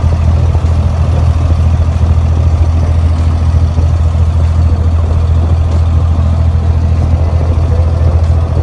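Abra water taxi's inboard diesel engine running steadily under way, a loud, even low drone.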